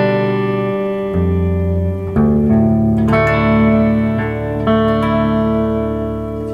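Electric guitar (a Gretsch White Falcon G6136T hollow-body) playing a slow run of chords, each left to ring. Both Filtertron pickups are on, blended toward the neck pickup with the bridge dialled down a touch, for a warmer tone.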